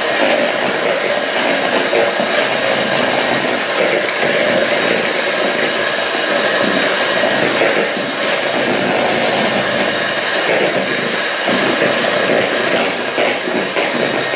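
Electric hand mixer running steadily, its beaters whipping cream in a plastic bowl.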